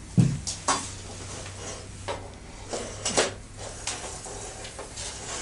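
Metal tension bar clinking against chain-link fence mesh as it is threaded through the mesh loops: about half a dozen irregular sharp clinks, the heaviest a knock with a dull thud just after the start.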